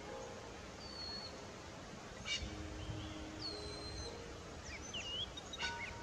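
Outdoor ambience: a steady hiss with small birds giving thin high whistles and short chirps. One whistle comes about a second in and a longer one around three and a half seconds, with a run of quick chirps near the end. Faint low held tones sit underneath.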